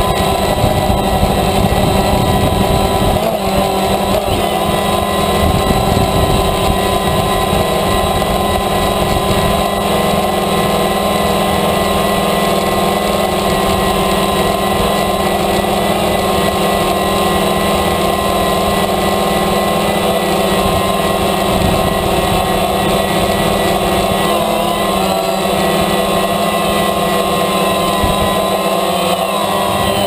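DJI Phantom quadcopter's motors and propellers whining steadily, heard close up through its own onboard camera, shifting slightly in pitch twice in the last few seconds.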